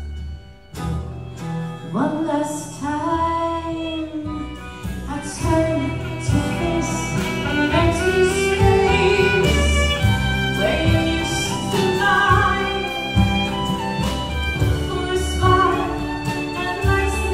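Live Celtic folk band: a woman singing lead over fiddle, acoustic guitars, upright bass and drum kit. The music dips briefly just under a second in, then the voice comes in with a rising note.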